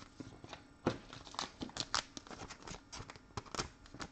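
Trading cards and their plastic packaging being handled, crinkling and rustling in a run of irregular crackles and light clicks.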